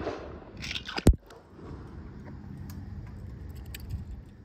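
Toy cars being handled: small clicks and scrapes, with one sharp knock about a second in.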